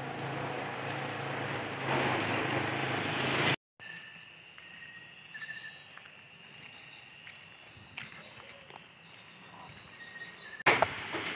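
A motor vehicle's engine hum and road noise grow louder as it approaches, peaking about two seconds in. After an abrupt cut, night insects chirp faintly in short repeated high trills, with a few faint clicks.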